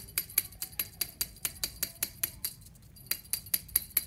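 Small bell on a cat teaser toy jingling in quick, even shakes, about five a second, with a short pause a little past halfway.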